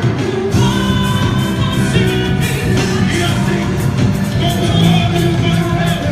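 Festa junina music with singing over a steady beat.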